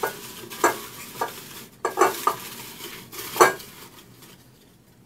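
Folded paper raffle tickets rustling and crinkling as a hand stirs through them in a glass bowl: a string of short, sharp rustles that die down about four seconds in.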